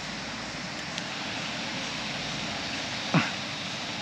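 Steady outdoor rushing noise, with one short sharp whistle sliding quickly down in pitch about three seconds in.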